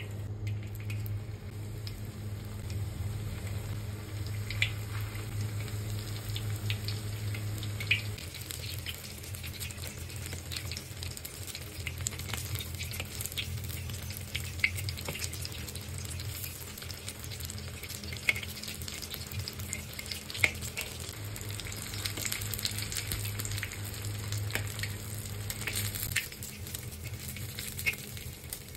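Lumpia deep-frying in hot oil in a wok, with a steady sizzle that grows louder about eight seconds in. A few single sharp clicks of metal tongs against the wok, over a steady low hum.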